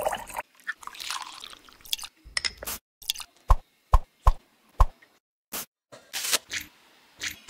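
Close-up kitchen sounds of liquid being poured, first a hissing pour into a glass jug, then about four sharp drips and plops as the liquid goes into a metal muffin tin. Near the end, a few brief crinkles of plastic wrap.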